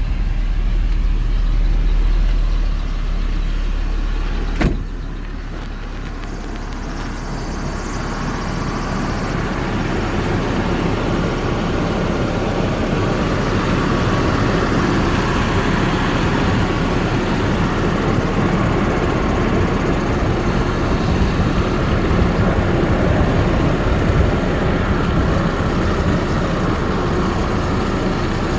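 Hummer H3 engine running at idle. A sharp click about five seconds in, after which a steady rushing noise builds up over several seconds and holds.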